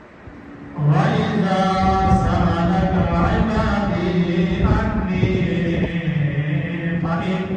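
A man chanting into a microphone in long, held, melodic phrases, starting about a second in after a short pause.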